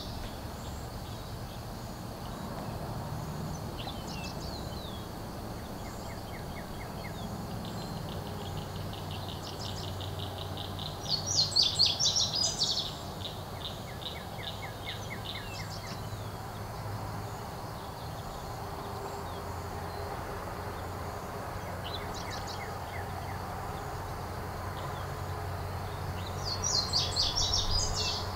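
A small songbird singing short phrases of rapid, high, loud notes twice, with fainter trills between, over steady low background noise.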